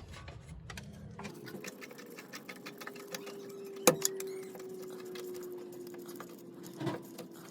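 Hand tool clicking rapidly as a stuck strut bolt is worked loose, with a faint steady hum underneath and two sharper metal knocks, one near the middle and one near the end.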